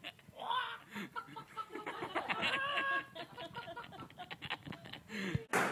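A person doing a vocal impression of a chicken: a series of short clucks.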